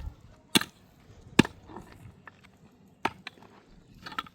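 Firewood being chopped: several sharp blows on wood at uneven intervals, the loudest about a second and a half in.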